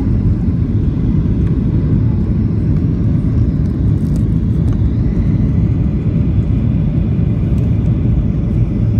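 Steady low rumble of engine and airflow noise heard inside the cabin of a Boeing 737 on approach to land, with its flaps extended.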